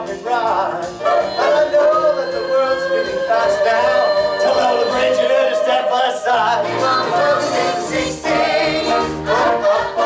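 Musical-theatre cast singing a show tune with instrumental accompaniment, heard from the audience.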